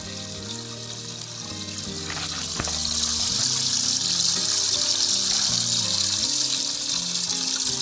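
Boat livewell aerator spraying water into the foamy well, a steady hiss that grows louder about three seconds in. Background music with a bass line plays underneath.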